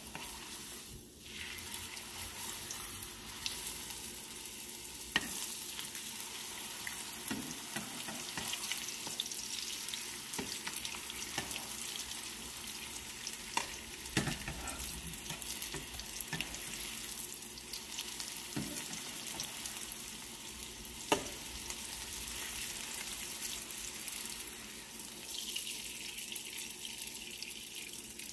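Tortillas frying in hot oil in a skillet, a steady sizzle, with a few sharp clicks as metal tongs turn and fold them against the pan.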